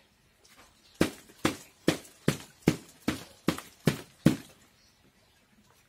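A flower pot knocked nine times in a steady series, about two and a half knocks a second, each a sharp thud with a short low ring: the pot being tapped so the fresh potting mix settles around the orchid's roots.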